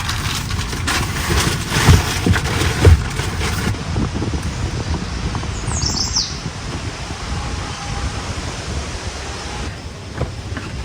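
Outdoor ambience: rough wind noise on the microphone with two loud thumps, then a smoother steady hiss with a brief high, falling bird chirp about six seconds in.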